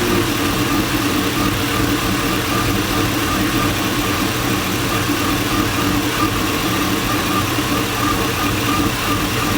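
LS-swapped V8 idling steadily. The engine has a misfire that the owner is chasing, along with a vacuum leak found at the back of the engine and a fuel trim reading of -31.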